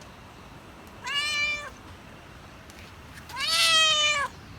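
Domestic cat meowing twice, impatient to be fed: a short meow about a second in, then a longer, louder meow that drops in pitch at the end.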